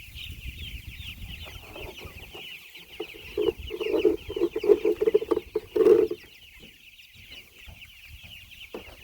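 A flock of meat chickens calling: a steady chorus of many short, high, falling peeps, with a louder run of lower-pitched sounds for about three seconds in the middle.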